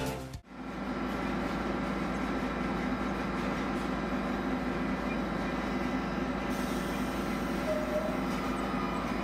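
Train in a station giving a steady, even running hum, with no clear rise or fall.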